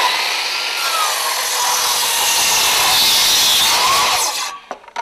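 Electric miter saw cutting through a wooden board: one loud, continuous cut with the motor's whine under the blade's rasp, stopping about four seconds in, followed by a few short clacks.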